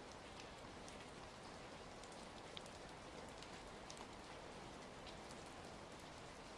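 Steady rain falling, mixed with scattered small pops and crackles of a fire.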